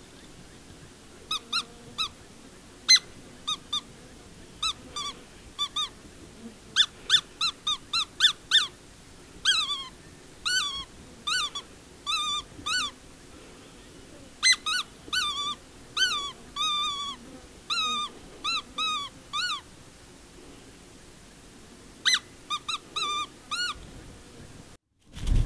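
Hand-blown predator whistle squealing in quick bursts of short, high-pitched cries, some bending downward, imitating a distressed animal to draw in a fox; after a pause of a couple of seconds a last short series follows near the end.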